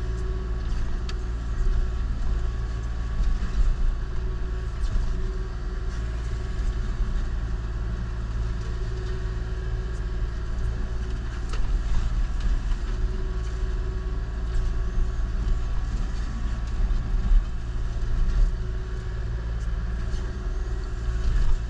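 Kubota KX040-4 mini excavator's diesel engine running steadily while its Indeco forestry mulcher head grinds brush into mulch, with a pulsing whine and scattered sharp cracks and clicks.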